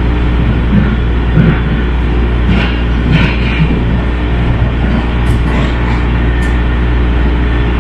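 Steady rumble and hum of a MARTA rail car running at speed, heard from inside the car, with brief rattles now and then.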